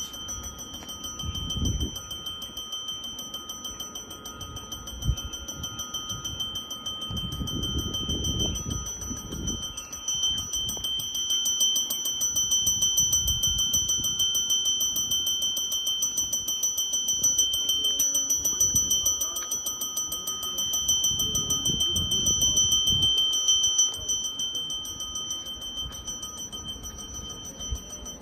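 A bell ringing continuously with a fast, even repeat and a high, steady pitch. Irregular low rumbles come and go about 1.5 s, 8 s and 22 s in.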